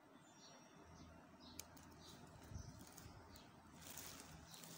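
Near silence, with one faint snip of scissors cutting through a cotton bud's plastic stick about a second and a half in.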